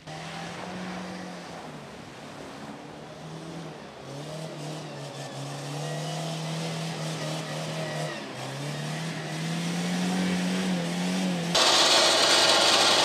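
Jeep Wrangler engine revving as it drives through a mud hole, its pitch rising and falling and climbing higher toward the end. About eleven and a half seconds in, it gives way abruptly to a much louder harsh noise from the Ram pickup's front-mounted winch pulling on its cable.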